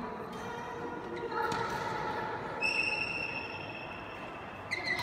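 Court shoes squeaking on a badminton court floor, several squeals, one held for over a second, ringing in a large hall. A racket strikes the shuttlecock with a sharp crack near the end.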